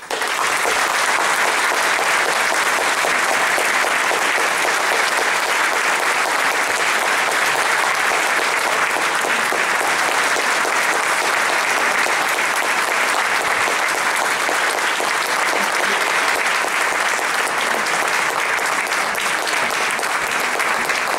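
Theatre audience applauding at the end of a piece, the clapping breaking out all at once and then holding steady.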